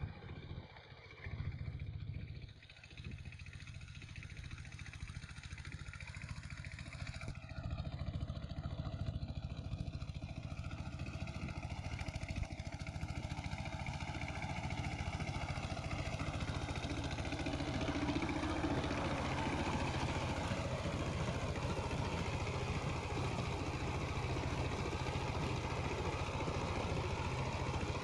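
Two-wheeled power tiller's single-cylinder diesel engine chugging steadily under load while its rotary tiller churns the soil. It grows louder as the machine approaches.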